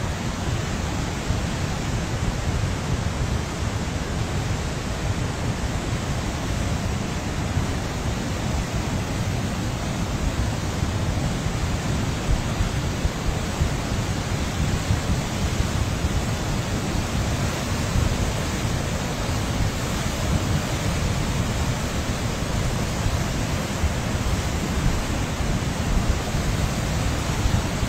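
Muddy river in flood, running over its banks as a fast torrent: a steady rush of water with no let-up.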